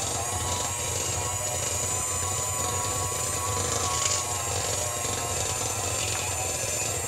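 Electric cake mixer running steadily with its beaters in a thick cake batter, a constant motor whine.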